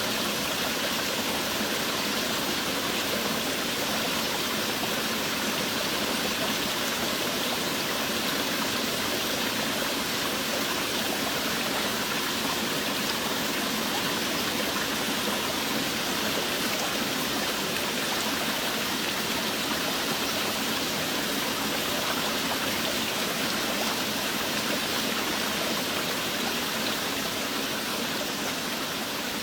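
Heavy rain falling steadily, an even, unbroken hiss that does not change.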